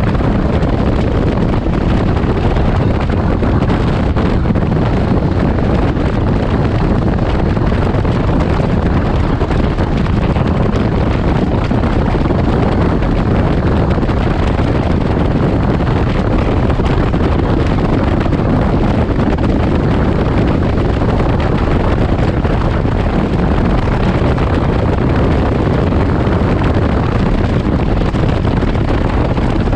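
Steady wind rush on the microphone from a Can-Am Ryker Rally three-wheeled motorcycle cruising at highway speed, with its engine and road noise blended underneath.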